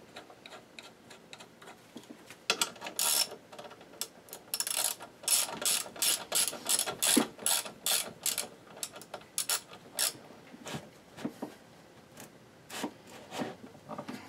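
Ratchet wrench clicking in quick runs, then in scattered single clicks, as bolts are tightened into the aluminium transmission case to 30 ft-lb.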